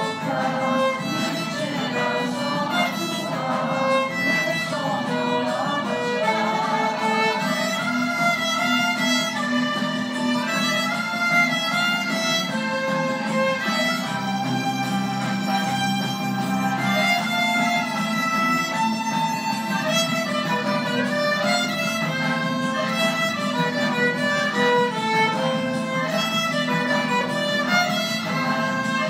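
Violin played with the bow, a lyrical melody of moving and held notes.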